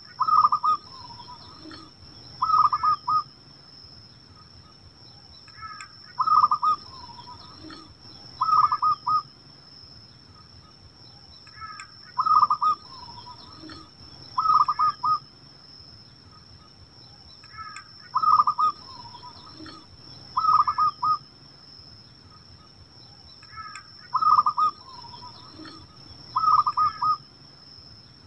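Zebra dove (perkutut) singing its cooing song, the same phrase repeated about every six seconds. Each phrase opens with a short higher note, followed by two quick bursts of rolling, trilled coos.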